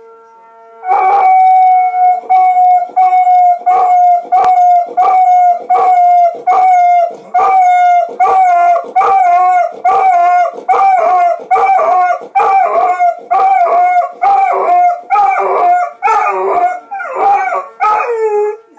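A tornado siren sounding a steady tone, pulsing about twice a second, with a golden retriever howling along in a wavering pitch that grows stronger in the second half.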